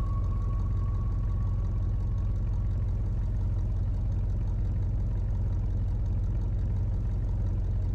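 Steady low synthesizer drone from a synth music mix, with a high held tone fading out over the first two or three seconds.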